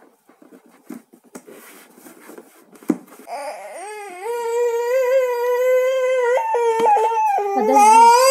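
A toddler crying: a long wailing cry begins about three seconds in and gets louder near the end. Before it come light rustling and clicks of plastic tube parts being handled.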